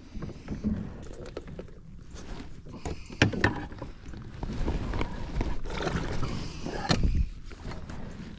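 Scattered knocks and clatter of gear being handled on a fishing kayak, over a steady low rumble; the loudest is a sharp knock about three seconds in.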